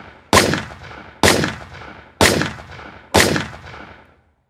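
Four handgun shots fired at a steady pace about a second apart, each trailing off in a short echo.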